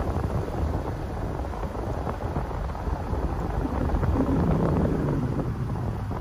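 A car driving: low rumbling road and engine noise with wind buffeting the microphone, swelling louder about four seconds in.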